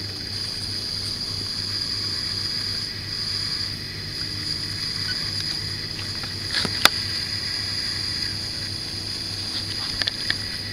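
Steady low electrical hum with a thin high whine, and a few sharp taps of a stick against the hard floor: two a little past halfway, the louder of them the loudest thing here, and a small cluster near the end.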